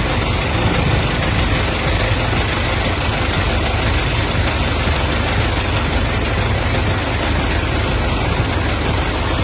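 Rushing floodwater after heavy rain, a loud, steady, even rush with a deep rumble underneath.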